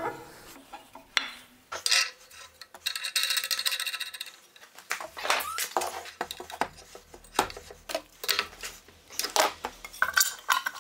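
Metal clinks, clicks and knocks as a cutter block and its nut are handled on a radial arm saw's arbor, with a ringing metallic rattle about two to four seconds in.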